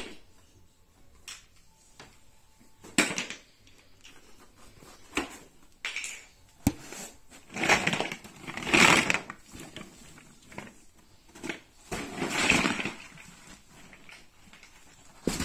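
Large plastic building blocks rattling and a fabric storage box rustling as a toddler rummages through it, in several irregular bursts with a sharp click about seven seconds in.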